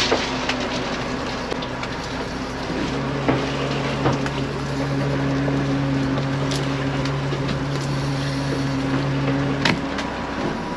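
Fishing boat's machinery, the engine and hydraulic net hauler, running with a steady low hum while the net is hauled aboard. A deeper hum joins about three seconds in and stops near the end, with a few light knocks.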